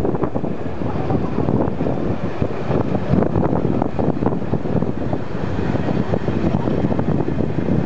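Steady running noise of a slow-moving metre-gauge museum train, heard from an open coach window: a rumble with irregular knocks from the wheels and coach, and wind buffeting the microphone.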